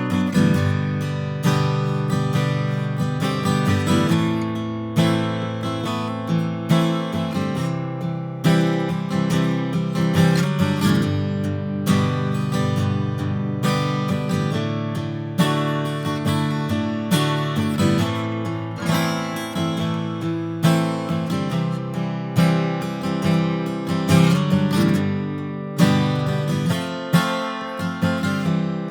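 Gibson Hummingbird Vintage acoustic guitar, a mahogany-backed dreadnought with a thermally aged Sitka spruce top, strummed in chords with many strokes.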